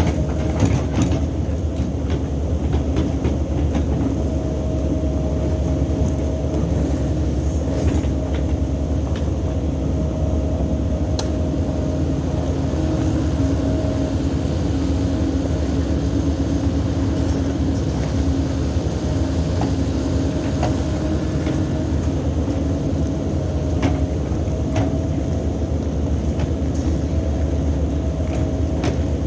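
Cat 308 mini excavator's diesel engine running steadily under load, with a steady hydraulic whine over the engine drone. A few sharp clanks stand out, about a second in, around eight and eleven seconds, and twice near the end.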